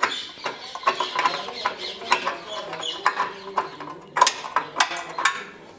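Metal clicking and scraping of a loosened silencer-mounting bolt being turned out and drawn out of a Royal Enfield Bullet 350's exhaust bracket by hand. There is a run of sharper metallic clinks about four seconds in.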